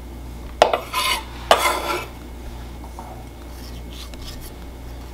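Kitchen knife scraping minced garlic across a wooden cutting board and into a ceramic bowl of chopped onion: a sharp clink about half a second in, then two short scrapes within the first two seconds, followed by a few faint taps.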